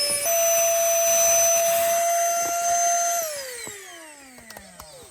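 A small electric motor whining at high speed, stepping up slightly in pitch just after the start. About three seconds in it is switched off and winds down, its whine falling steadily in pitch and fading.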